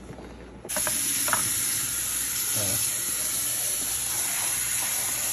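Kitchen sink tap running steadily, water pouring onto hands rinsing a soapy plastic food container and paper towel; the flow starts abruptly about a second in.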